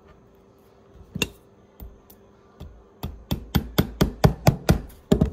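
A hammer driving a tack through a leather heel counter into a shoe last: a few spaced taps, then a quick run of about a dozen blows at about four a second.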